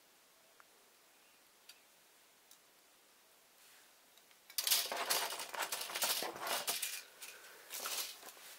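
Plastic model-kit sprues and their plastic packaging being handled. It is quiet with a few faint clicks at first. About four and a half seconds in, loud crinkling and rattling starts and lasts about three seconds.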